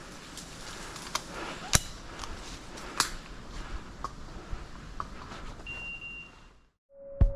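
Faint rustling hiss with scattered sharp snaps and clicks, the two loudest about two and three seconds in, and one short high beep about six seconds in; the sound cuts off just before the end.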